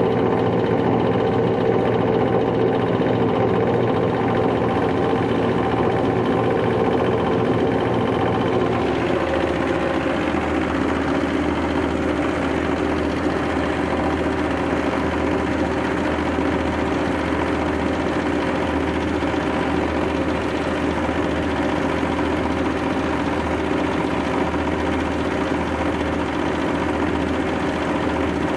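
Husk and bran grinding mill running steadily while it grinds peanut shells into fine powder, a continuous mechanical drone. About nine seconds in the hum drops lower and a hissier grinding noise comes up.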